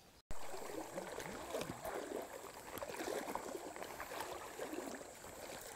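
Two anglers pushing on foot through tall grass: stalks swishing and brushing against their clothing, with footsteps and some splashing of shallow water. A thin steady high tone sounds behind it.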